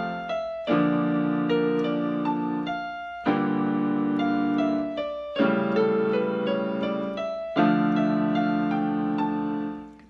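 Yamaha PSR-175 portable keyboard played with both hands in a piano voice: a slow melody over held chords, the chord changing about every two seconds. The sound dies away briefly at the very end.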